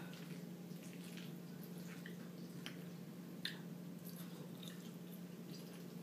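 Metal fork clinking and scraping against a ceramic bowl of macaroni and cheese, with soft wet chewing, over a steady low hum. Scattered faint clicks, one sharper click about three and a half seconds in.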